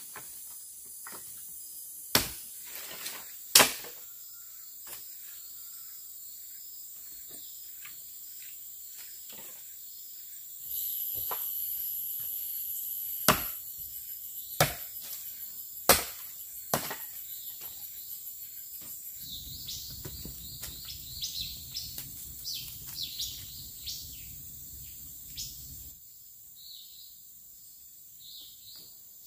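A few separate sharp knocks of a knife chopping into wood, over a steady hum of forest insects; a higher insect buzz joins for several seconds in the middle.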